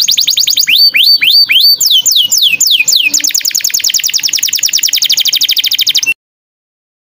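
Small songbird song played loud: quick strings of down-slurred whistled notes that change pattern a couple of times, then a very fast, steady rattling trill that cuts off suddenly about six seconds in.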